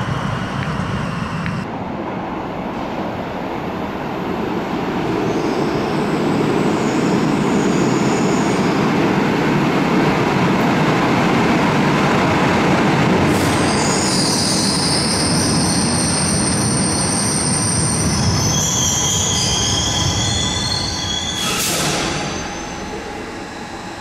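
Light-rail Stadtbahn train entering an underground station and braking. It runs with a rumble that builds to its loudest about halfway, and its wheels squeal high-pitched, more strongly in the second half. A short burst of noise comes near the end, then the sound drops away as the train slows.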